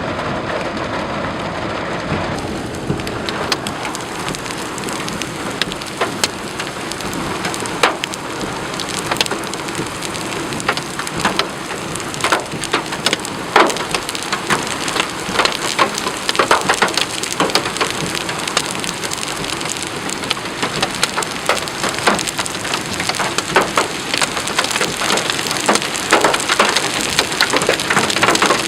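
Heavy thunderstorm rain pouring steadily, with sharp clicking hits on a hard surface that begin a few seconds in and come thicker and louder from about twelve seconds on.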